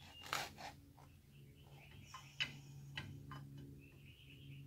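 Several sharp, irregular metal clicks and taps from tools and bracket hardware being handled at the front of an engine. Birds chirp faintly behind them over a steady low hum.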